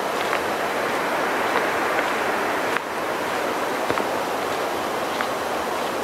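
Steady rain falling on the forest, an even hiss with scattered single drip ticks.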